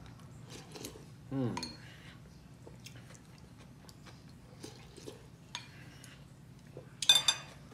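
A person eating soup: a metal spoon clicking against a ceramic bowl, with quiet sipping and chewing. A brief voiced sound comes about a second and a half in, and a louder burst, the loudest sound here, comes near the end.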